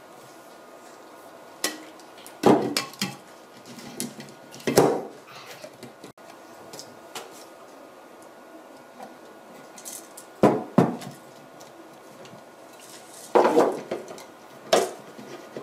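Clear plastic water filter housings and cartridges knocking and clattering as they are handled and set down on a table, in a series of separate sharp knocks, some in quick pairs.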